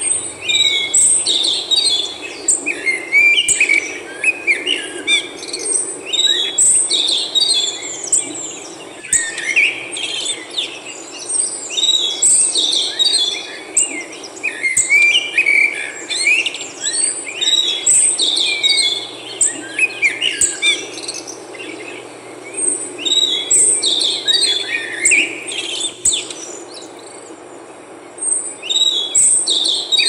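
A chorus of several songbirds chirping and singing: dense, overlapping short high calls and trills over a steady low background noise. The calls thin out for a few seconds near the end.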